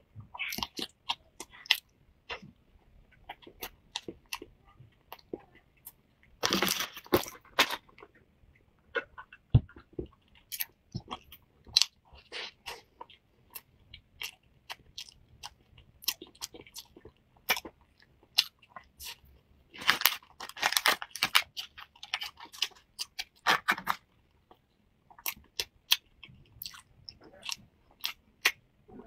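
Close-miked chewing and biting of a flaky salted egg yolk pastry: a run of small crumbly crunches and mouth sounds, with longer crunchy bites about six and a half seconds in and again around twenty seconds in.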